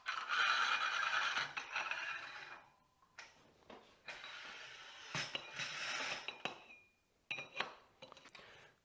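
Inner and outer tubes of a KYB dirt-bike fork being slid together: two stretches of metal rubbing, each a couple of seconds long, with a few light knocks and clinks between them and near the end.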